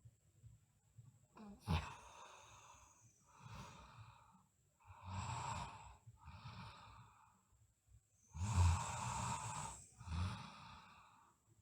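A sleeping girl breathing heavily in and out, about five noisy breaths with a light snoring rattle, the loudest a little past the middle. A brief click comes near the start.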